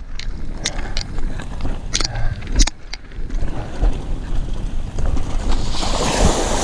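Bicycle ride over a rough trail: wind buffeting the microphone, with scattered rattles and knocks from the bike, and a brief rush of noise near the end.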